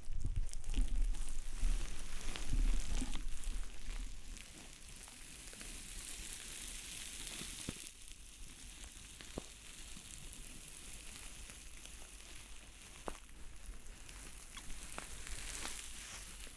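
Close-miked ASMR trigger sounds: a crackling, hissing rustle with scattered light ticks, louder and with low thumps for the first four seconds, then softer and steady.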